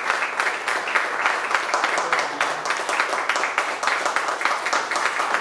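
Audience applauding: many people clapping steadily at once.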